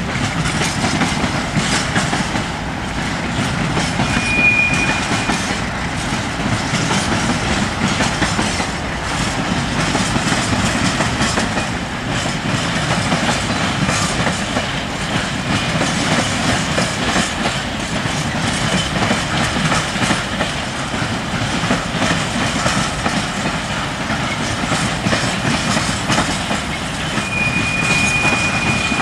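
Ballast hopper wagons rolling past, a steady rumble and clatter of wheels on the rails. A brief high wheel squeal comes about four seconds in, and a longer one near the end.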